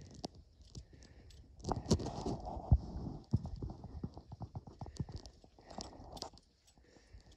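Mountaineering boots scrambling over jagged rock on a ridge: irregular knocks and clatter of boots and loose stones, busiest about two seconds in and again near the end.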